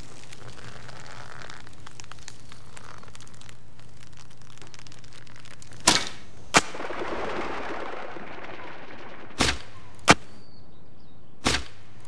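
Three Japanese longbow (yumi) shots: each a sharp crack of the bowstring on release, followed about two-thirds of a second later by the smack of the arrow striking. A soft rush of noise runs for about two seconds after the first shot.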